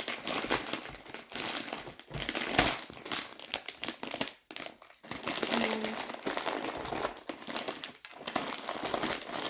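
Crinkling and crackling of a potato chip bag being handled, in irregular rustles.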